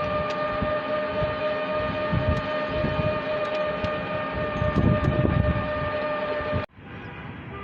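Dhaka Metro Rail train running with a steady, multi-tone electric whine over a rumble that swells about two-thirds of the way in. The sound cuts off abruptly near the end, leaving a quieter background.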